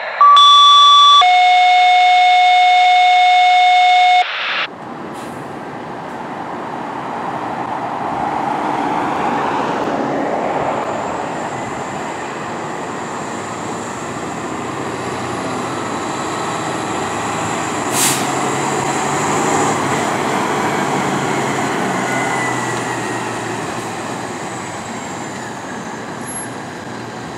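Two loud steady electronic tones, the first higher and about a second long, the second lower and about three seconds long, then cut off sharply. After them comes the running noise of a fire engine driving past with its engine and tyres, swelling twice, with a sharp click about two-thirds of the way through.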